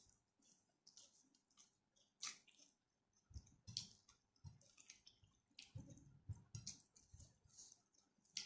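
Close-up eating sounds: a person chewing rice and spicy stir-fried chicken, with irregular wet mouth smacks and clicks, and soft low chewing thuds in the middle stretch.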